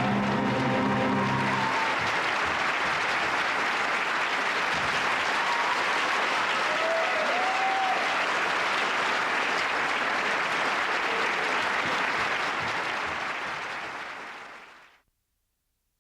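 Audience applauding at the close of a symphony performance. Over the first two seconds the orchestra's final held chord rings out and stops, and the clapping then carries on steadily before fading out near the end.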